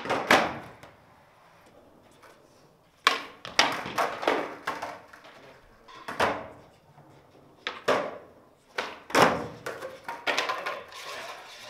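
Skateboard tricks on a hard indoor floor: a series of sharp clacks as the tail pops and the board lands and slaps down, in clusters every second or two, echoing in the hall, with wheels rolling between them. These are halfcab heelflip attempts.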